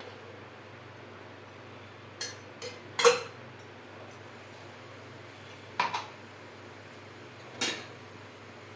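Kitchen utensils clinking and knocking against a metal cooking pan: about five sharp strikes, the loudest about three seconds in, with two more near six seconds and one near the end.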